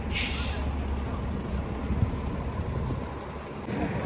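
Street traffic: a steady low engine rumble, with a short sharp hiss at the start.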